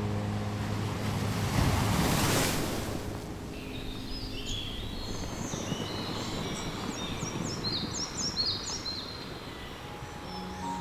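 An ocean wave washing in, swelling and fading over about two seconds near the start, over a steady surf background. From about four seconds in, small songbirds chirp in quick runs of short high notes for several seconds.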